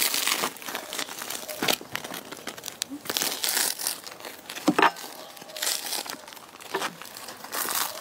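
Crusty bread loaves being torn apart by hand, the crust crackling and crinkling again and again.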